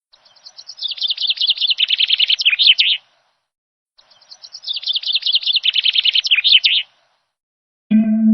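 A songbird singing two song phrases, each a fast run of repeated high notes about three seconds long that starts faint and grows louder. Music starts near the end.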